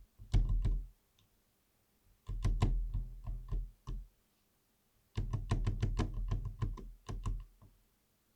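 Mechanical keyboard typed on in three quick bursts of keystrokes, each press a sharp click with a deep knock-like body. The switches are coated in a thick lube that feels like glue.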